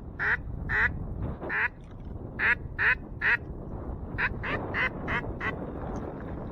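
Hen mallard quacks: eleven loud, short quacks in three groups, the last a quicker run of five that trails off, over steady wind noise.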